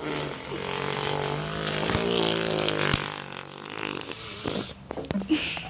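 Small portable air compressor running with a steady, buzzy, fart-like tone for about three seconds, then going hissier before it fades, with a few clicks near the end.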